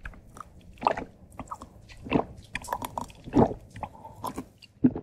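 Close-miked gulping as a drink is swallowed from a small glass mug: four loud swallows about a second apart, with smaller wet mouth clicks between.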